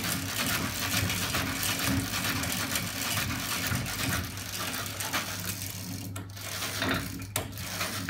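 Homemade magnet-assisted bicycle engine rig running, its bicycle chains and sprockets ticking and rattling rapidly over a steady low hum. The rattle thins out to separate clicks over the last couple of seconds.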